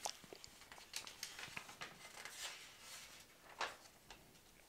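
Thin catalog pages being turned by hand: faint paper rustling with a few short page flicks, one near the start, one about a second in and one near the end.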